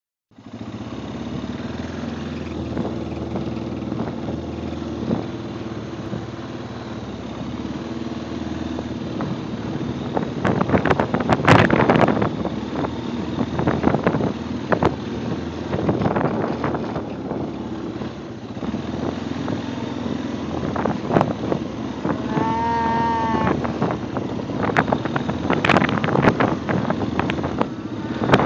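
Steady hum of an idling vehicle engine, with loud calls to the cattle rising over it in the second half, one of them a long, clear-pitched call.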